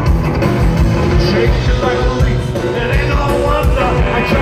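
Live rockabilly band playing loud rock and roll with a steady beat and a singing voice.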